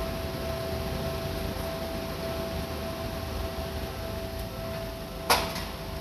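Railway level-crossing warning bell ringing steadily while the barrier is down, over a low background hum. About five seconds in there is one sharp knock, the loudest sound here.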